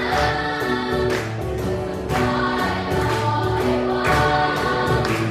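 Children's choir singing a lively song in Taiwanese Hokkien, with rhythmic clapping in time with the beat.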